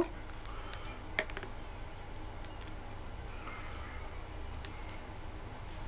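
Hard plastic parts of a Jetboil Minimo stove (lid and pot stand) being handled: a couple of sharp clicks about a second in, then a few faint ticks, over a steady low hum.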